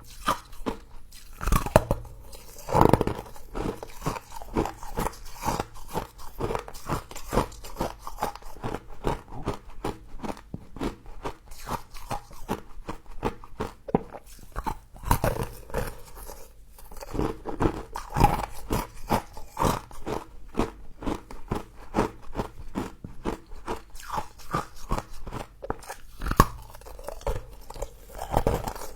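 Humidifier frost being bitten and chewed close to the microphone: a dense run of crisp crunches, with a few louder bites scattered through.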